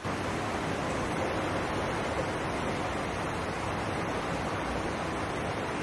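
Steady rush of hot water being poured into a rubber hot water bottle at a kitchen sink. It starts abruptly and stays even.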